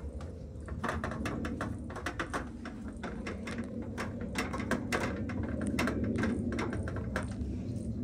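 Irregular light clicking and tapping from a gloved hand working the tap valve on a can of refrigerant and its charging-hose fitting, over a steady low hum. The clicks come thicker in the second half.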